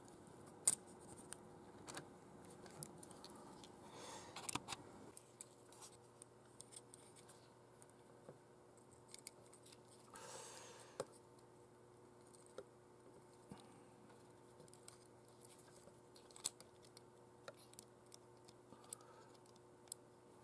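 Faint, scattered small clicks and ticks of a thin metal tool and fingers handling the plastic parts of a model's propeller hub, with a brief rustle about ten seconds in.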